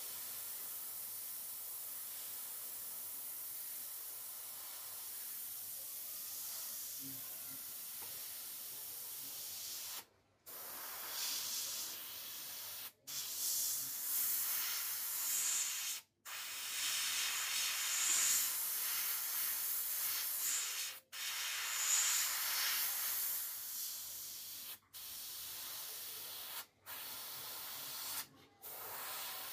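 Airbrush spraying undiluted brown model paint: a steady hiss of air, then from about ten seconds in, louder spurts of spray broken by several short, sudden silent gaps.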